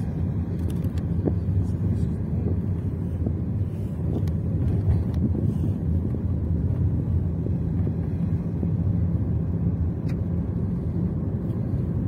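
Steady low rumble of a car's engine and tyres on the road, heard from inside the moving car.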